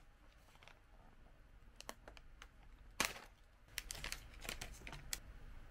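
Foil-lined plastic snack pouch being torn open by hand at its tear notch: a sharp rip about three seconds in, followed by a quick run of crinkles and crackles as the bag is pulled open.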